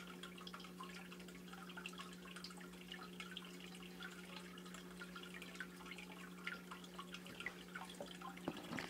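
Aquarium water trickling and dripping in many small, irregular splashes over a steady low hum, with a few louder knocks near the end.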